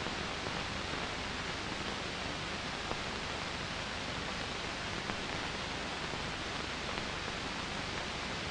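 Steady hiss from an old film soundtrack between lines of narration, with a few faint clicks.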